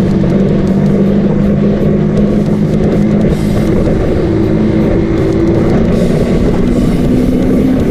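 KTM Duke 200's single-cylinder engine through an aftermarket muffler, running at steady revs under way, with wind noise.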